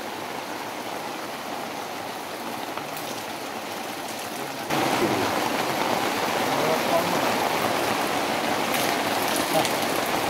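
Heavy rain falling on a plastic-sheet roof: a steady hiss of rain that gets suddenly louder about five seconds in.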